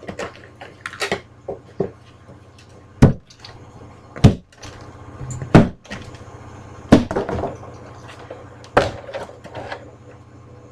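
Wooden speaker cabinet being handled and set down: about five sharp, hollow knocks spaced a second or more apart, with smaller clicks in between.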